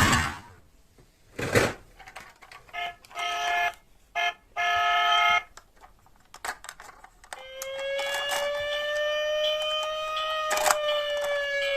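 Toy emergency vehicle's electronic siren sounds: a click, a few short beeps, then from about seven seconds in a steady siren tone that slowly rises and falls a little, with another click partway through.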